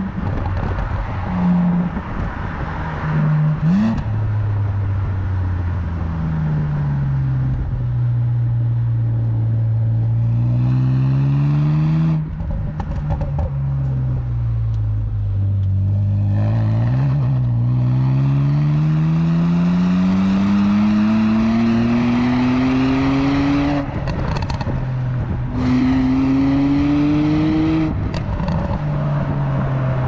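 BMW Z4 Coupe 3.0si's N52 3.0-litre naturally aspirated straight-six running under way. The engine note falls and climbs with the revs, with one long steady climb in the middle. It breaks off briefly three times where the throttle lifts or a gear changes.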